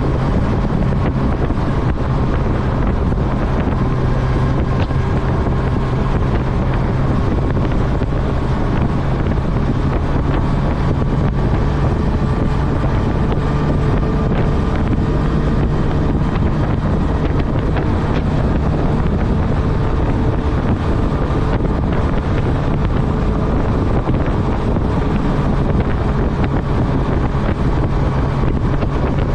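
Honda CB1000R's inline-four engine running at a steady, even speed while riding, with heavy wind rushing over the microphone.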